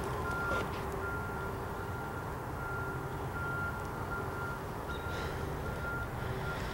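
Faint electronic beeping, a single pitch repeating about once a second, over a steady low rumble.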